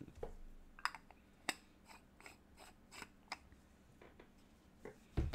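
A run of light, irregular clicks and taps, about a dozen, ending in a heavier dull thump.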